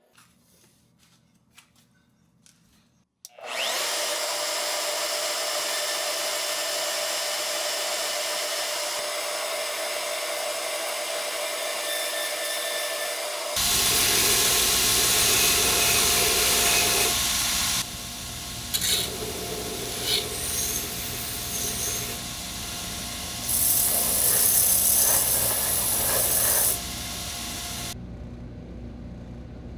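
A power tool starts suddenly about three seconds in and runs steadily. Then a belt grinder grinds a steel knife blade in several loud passes, the loudest part of the sound. Near the end it drops to a quieter steady running.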